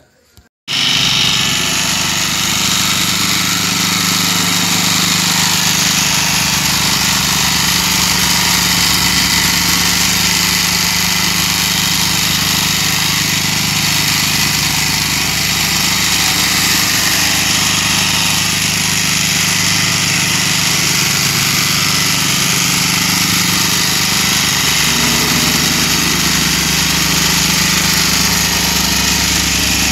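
Small petrol engine of a vibratory plate compactor running steadily at working speed while it settles freshly laid interlocking concrete paver blocks. It starts abruptly about half a second in and holds an even, loud drone with a rattling vibration.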